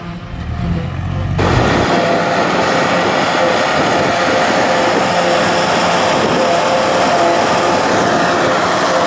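Tractor engine running, then, about a second and a half in, the loud steady drone of a JF FCT 850 trailed forage harvester chopping grass behind a Massey Ferguson tractor, with a steady whine held throughout, and the engine of a Massey Ferguson 390 hauling the silage trailer alongside.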